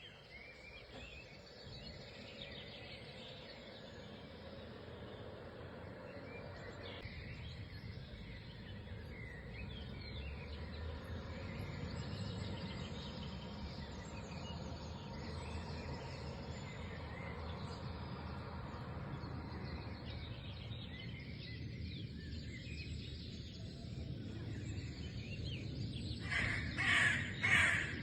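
Outdoor ambience with a steady low background rumble and scattered faint bird chirps; near the end a crow caws loudly, about four times in quick succession.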